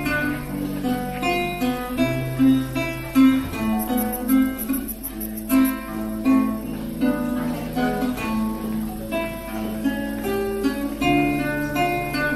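Classical guitar played solo: a plucked melody of separate notes over held bass notes.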